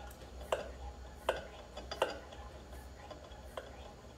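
Hand air pump of a Petromax-type pressure kerosene lantern being stroked to pressurise the fuel tank. Each stroke gives a sharp click: three strong ones about three quarters of a second apart, then fainter ones.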